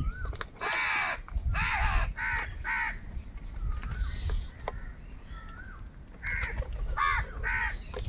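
House crows cawing: four harsh caws in the first three seconds, then three more near the end, with scattered faint clicks between them.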